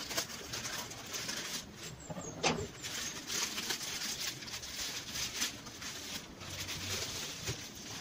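Plastic courier mailer and bubble wrap crinkling and rustling as a package is pulled out by hand, with a sharp plastic crackle about two and a half seconds in. A dove coos low in the background.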